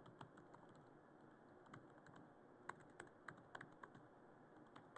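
Faint, irregular keystroke clicks of typing on a computer keyboard.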